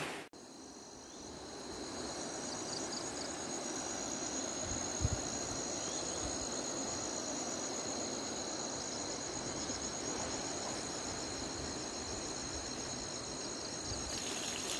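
Insects calling in a steady, high-pitched chorus, some in continuous tones and some in quick pulses. A single brief low thump about five seconds in.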